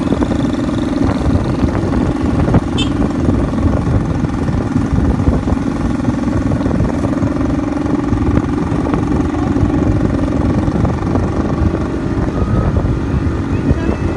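A motorcycle-type engine running steadily, with a constant low hum and wind buffeting the microphone.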